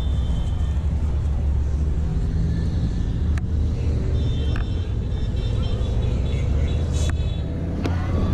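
Outdoor ambience dominated by a steady low rumble on the microphone. A few sharp clicks and faint high whistling tones sit over it.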